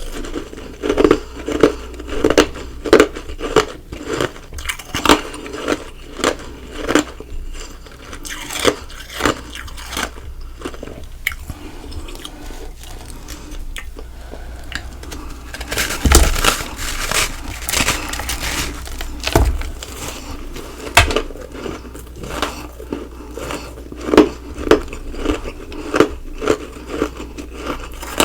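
Close-miked ice being bitten and chewed: a steady run of sharp crunches, a few a second, with a denser, crackly stretch of crunching a little past halfway.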